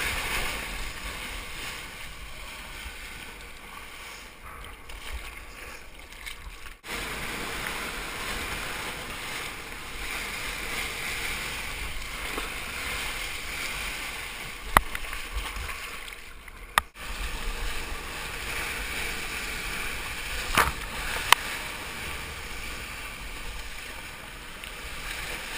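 Whitewater rushing and splashing past a GoPro camera in its waterproof housing as a surfboard rides a small breaking wave, heard as a steady hiss of water. A few sharp knocks come in the second half, and the sound cuts out briefly twice.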